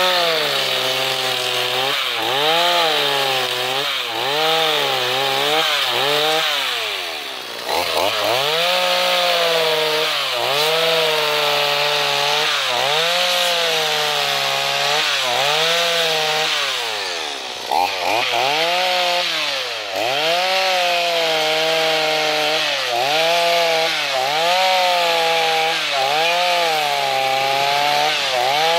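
Two-stroke chainsaw driving a mini power-gouge disc attachment, cutting a groove along a log. The engine pitch sags and recovers about once a second as the disc bites into the wood, and a few times falls back almost to idle before revving up again.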